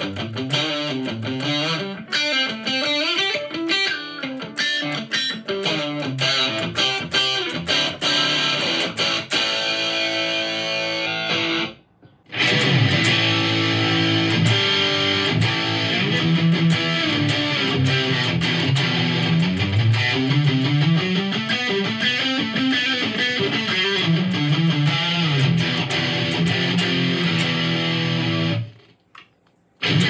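LUXARS S-G62 electric guitar played in runs of picked notes. It breaks off briefly about twelve seconds in, comes back louder and denser, and stops for about a second near the end.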